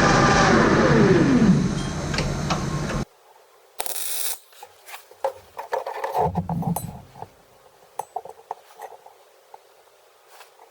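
A metal lathe running, then switched off: its whine falls in pitch as the spindle coasts down. About three seconds in the sound cuts off abruptly, and scattered light metallic clinks and knocks of parts and tools being handled follow.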